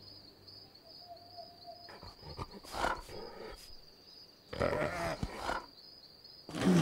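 Roar-like cartoon growls in three bursts, each louder than the last, the loudest starting near the end, over a steady high-pitched whine.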